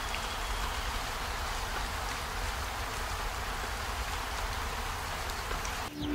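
Rain falling, a steady even hiss.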